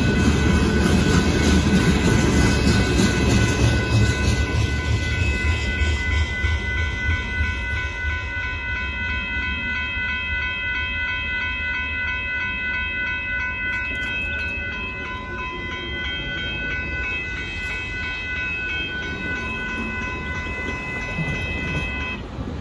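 Freight train of covered hopper cars rumbling and clattering past a grade crossing, loudest for the first few seconds and fading as the last cars go by. A grade crossing bell rings steadily throughout and stops shortly before the end, as the crossing clears.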